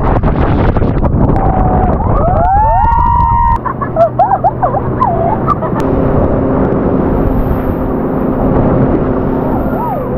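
Wind and rushing spray buffeting the microphone on a towed banana boat, with riders shrieking and squealing in rising and falling cries from about two seconds in. A steady hum sets in about halfway through.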